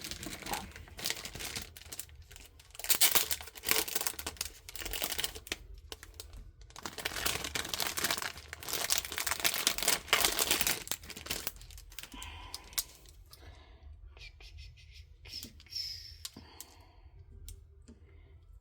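Plastic packaging crinkling and tearing as it is handled, in dense rustling bursts for about eleven seconds, followed by a few lighter clicks and taps of small plastic items being set down.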